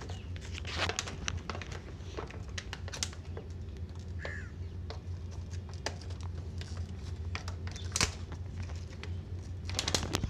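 Clear plastic blister packaging crinkling and clicking irregularly as a glue gun is pulled out of it by hand, the sharpest crackles about eight seconds in and near the end, over a steady low hum.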